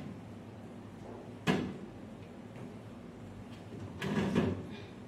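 Bottles being put into a refrigerator, knocking against its shelves: one sharp knock about a second and a half in, then a short clatter around four seconds in.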